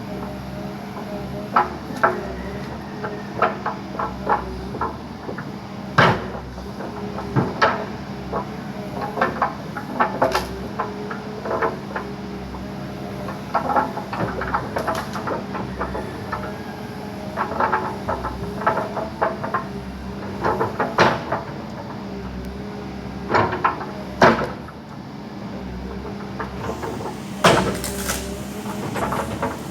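Backhoe's diesel engine running steadily under load, with frequent sharp knocks and cracks as it breaks up a tree.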